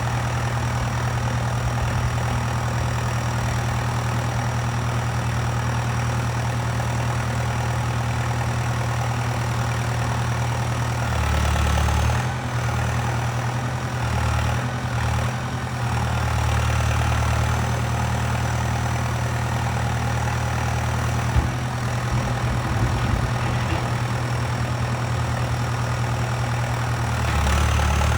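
Valtra 815 backhoe loader's engine running steadily. Its note shifts a few times in the middle and rises again near the end, and there is a single sharp click partway through.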